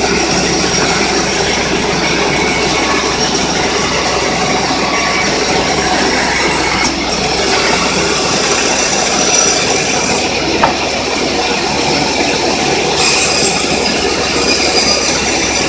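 Portable band sawmill running steadily, its blade sawing an acacia log into boards. A single sharp click about ten and a half seconds in.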